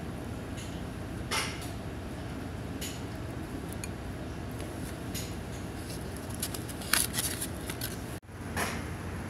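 Chopsticks scraping natto out of a small natto cup onto a rice bowl: a few light clicks and taps, with a short cluster about seven seconds in, over steady restaurant room noise. The sound drops out for an instant just after eight seconds.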